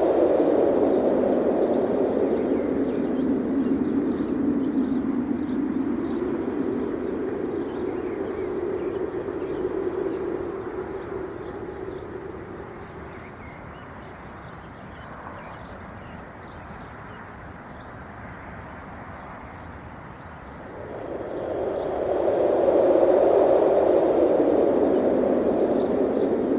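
Wind gusting with a deep rushing noise that swells, dies down for several seconds and then swells again, while small birds chirp repeatedly in the background.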